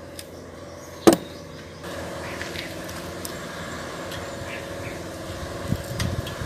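Single sharp metallic click about a second in as a bicycle V-brake arm is pushed onto the fork, over a steady motor hum, with a few soft knocks of metal bike parts being handled near the end.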